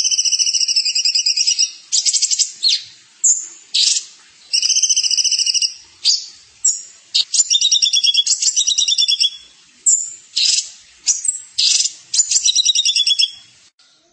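A songbird singing loud, rapid trilled phrases of one to two seconds each, separated by short breaks, ending near the close.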